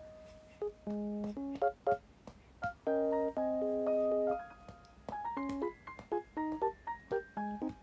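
Background music: a slow keyboard melody of single notes and small chords, some held for about a second.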